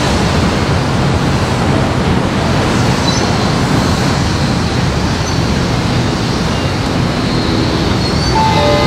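Dense, steady outdoor street noise: traffic rumble and hiss with no distinct events.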